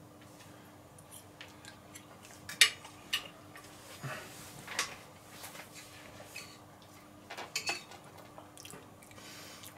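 Cutlery clinking against a plate now and then while eating: a few scattered light clicks, with a cluster near the end, over a faint steady hum.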